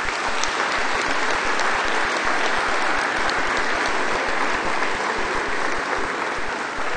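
Congregation applauding with steady, dense clapping.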